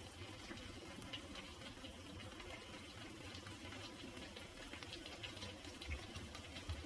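Creamy carbonara sauce simmering in a frying pan: faint, steady bubbling with many small pops.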